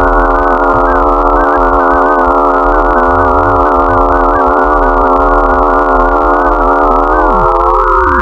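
A siren sounding as a loud, dense cluster of many steady tones at once. Near the end, some pitches slide down and one rises.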